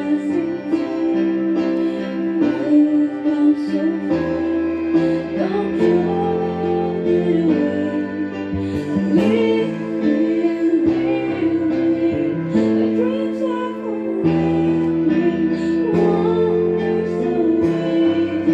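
A woman singing into a handheld microphone over an instrumental backing of held chords and a bass line.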